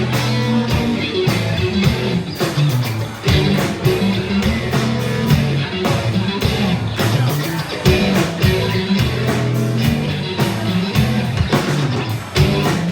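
Live rock band playing an instrumental passage: guitar over a low sustained bass line, with a steady beat of sharp hits.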